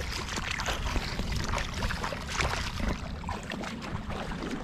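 Feet wading through shallow seawater: irregular sloshing and splashing steps over a steady low rumble.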